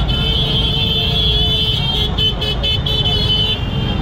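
Riding noise on a motorcycle: a heavy wind and engine rumble on the mic, with a vehicle horn sounding and breaking into a few short honks about two seconds in.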